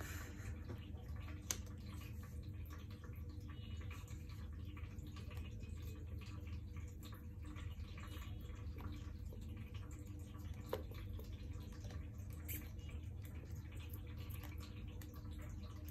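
Steady low room hum, with a few small sharp clicks and taps as fingers handle the wires and BMS board on a stacked lithium cell pack.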